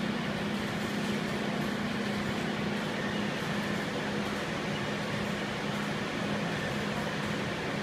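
Steady hum and hiss of running machinery, with a constant low tone and no punch strokes.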